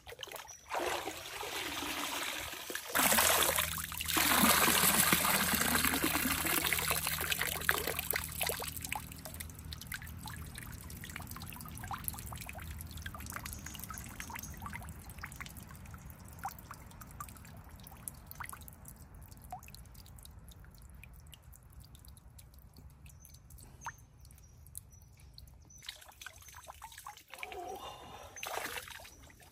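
Water pouring and trickling, loudest for a few seconds near the start, then thinning out into scattered drips and small splashes, with a brief louder pour near the end.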